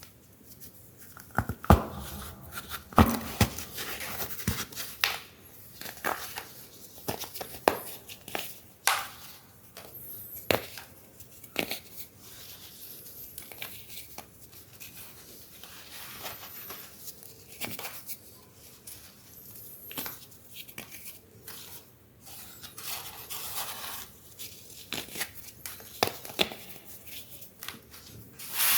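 Pressed baking soda shapes being crushed and crumbled: a run of irregular crunches and crackles, with the loudest cracks in the first few seconds.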